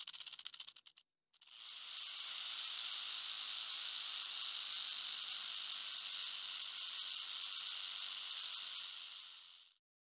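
Rattlesnake rattling: a short run of fast, buzzy rattling that stops about a second in, then after a brief pause one long steady buzz that fades away near the end.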